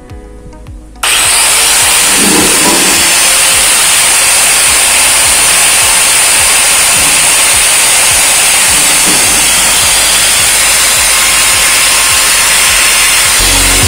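Angle grinder with a cutting disc cutting stainless steel: a loud, steady hiss with a high whine, starting suddenly about a second in.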